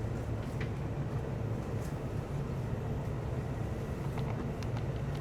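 Steady running noise of a Joban Line E531 series electric train heard from inside the passenger car: a constant low hum and rumble with occasional faint clicks.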